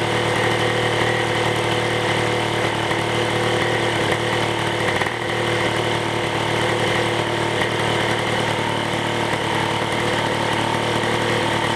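Two-stroke scooter engine idling steadily through a LeoVince TT exhaust whose end can has just been repacked with fresh glass wool. The owner judges that it no longer reaches 106 dB.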